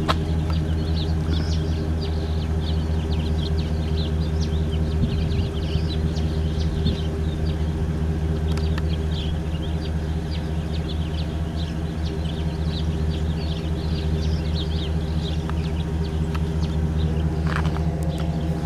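A vehicle engine idling steadily, a constant low hum, with small birds chirping over it.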